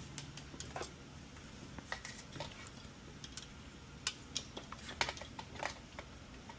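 Small, irregular clicks and taps, a few to the second at most, of tools and a circuit board being handled on a workbench.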